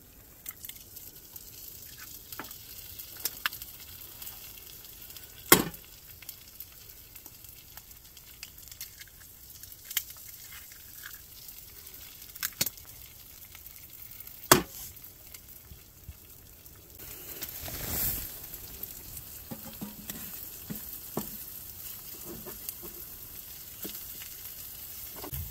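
Eggs frying in a small pan, a steady sizzle that grows louder about two-thirds of the way through, with a few sharp knocks, the loudest about six and fifteen seconds in.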